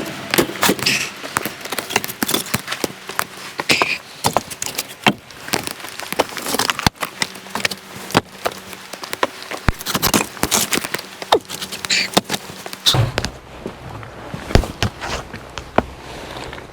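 Split firewood being handled: a string of irregular wooden knocks and clacks as logs strike one another. A low steady hum comes in near the end.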